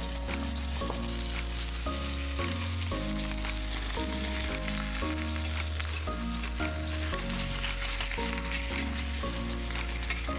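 Meat sizzling steadily in a hot pan, an even crackling hiss, under background music with a bass line that moves from note to note.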